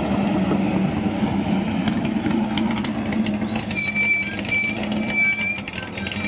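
Ford GT40 replica's V8 engine idling with a steady, slightly uneven low note. From about halfway through, a thin high tone comes and goes over it in short pieces.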